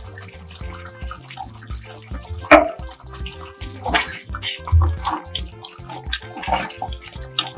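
Thick coconut-milk prawn curry bubbling and popping as it simmers in a non-stick wok, with a spatula stirring through the sauce in the second half.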